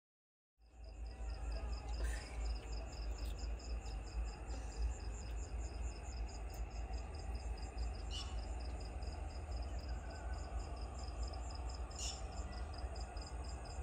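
Crickets chirping: a steady, rapid, high-pitched pulsing that starts about half a second in, over a low rumble.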